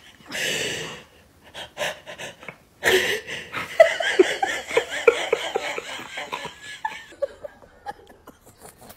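A loud breathy huff, then several seconds of short, repeated gasping sounds like breathy laughter.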